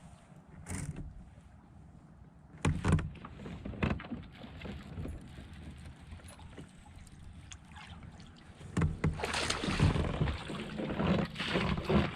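Knocks and bumps against a fishing kayak as gear and the fish are handled aboard, a few separate thumps, then from near the end a busier stretch of rustling and knocking.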